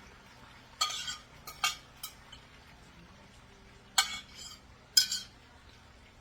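A spoon clinking and scraping against a bowl about six times, in two clusters, as the last of a marinade is scraped out over pork chops in a pan.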